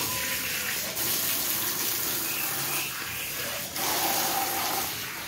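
Steady, dense hiss of hot oil sizzling as masala vadas deep-fry.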